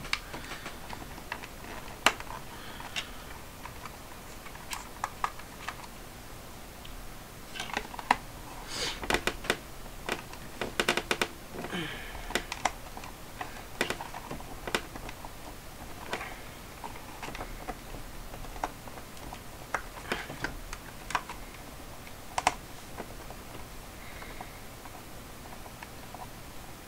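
Irregular small clicks and taps from hands handling a Casio fx-7400G Plus calculator's plastic case while its tight back screws are taken out, with a quick run of clicks about eight to eleven seconds in.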